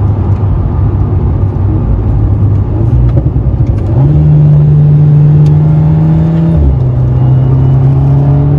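Alpine A110's turbocharged four-cylinder engine heard from inside the cabin, running at steady revs on the move. About four seconds in the revs step up sharply and hold, then drop back about two and a half seconds later, as with gear changes.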